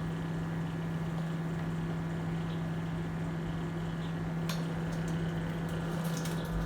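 Microwave oven running with a steady hum while it heats a tube-shaped fruit gummy candy, with one short click about four and a half seconds in.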